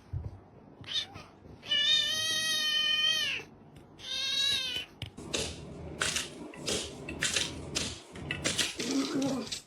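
Domestic cat meowing: one long, loud meow about two seconds in and a shorter, wavering one a second later, followed by a run of short rough noisy sounds, two or three a second.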